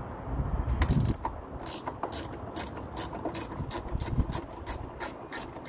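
Ratchet wrench clicking, about three or four clicks a second, starting about a second in, as a 10 mm bolt is backed out.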